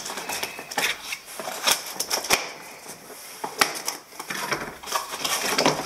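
Cardboard shipping box being opened by hand: its flaps are pulled apart and scraped, with irregular clicks and crackles from the cardboard.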